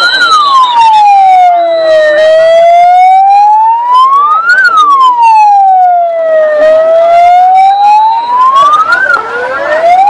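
Loud wailing siren, its pitch rising and falling slowly, about one full rise and fall every four and a half seconds.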